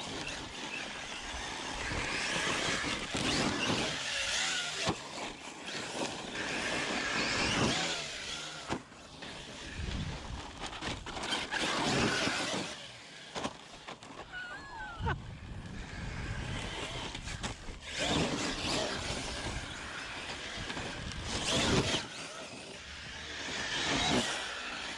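Custom 6S electric RC rally car, built from Arrma Typhon and Senton parts, driving hard on dirt. Its motor whine rises and falls with the throttle over the noise of the tyres spraying dirt and gravel.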